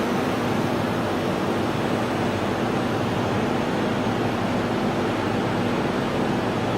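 Automatic welding machine running: a steady, even hiss over a low hum.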